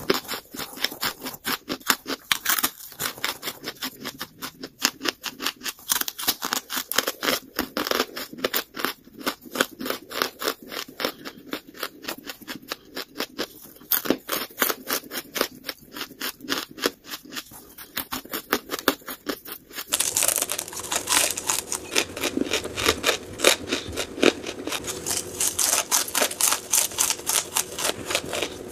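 Close-miked chewing of lumps of charcoal: rapid, dry crunching, several bites a second. About two-thirds of the way through it switches to a louder, fuller crunching.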